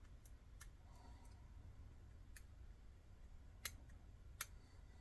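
Faint, scattered clicks of a lock pick and tension wrench working the pin stack of an Almont ReKey padlock: about five light ticks, the loudest past the middle, with near silence between them.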